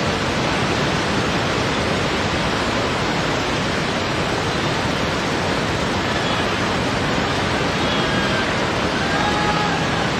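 Flood-swollen river rushing steadily: a loud, even wash of fast-flowing water.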